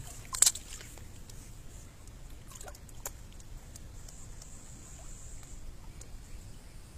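Pool water lapping faintly at the pool edge, with a sharp knock about half a second in and a few lighter clicks later.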